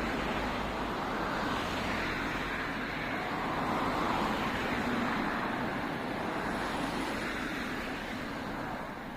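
A vehicle going past: a steady rushing noise that fades away near the end.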